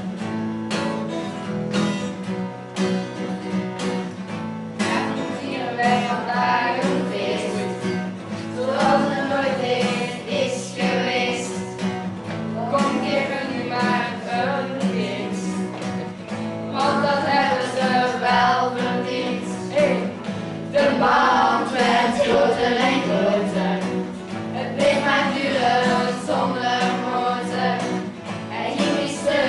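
A group of children and adults singing a song together, accompanied by an acoustic guitar.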